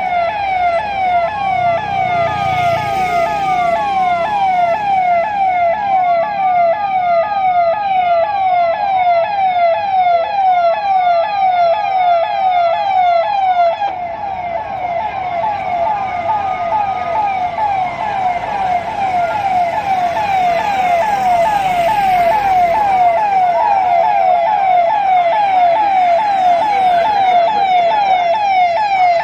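Police car siren sounding in a rapid yelp, its tone sweeping quickly down a few times a second, with a slower rising-and-falling wail over it every few seconds until about halfway through.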